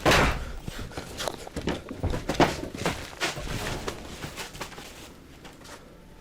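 An irregular run of knocks, bumps and thuds, loudest right at the start and again about two and a half seconds in, thinning out and growing quieter toward the end.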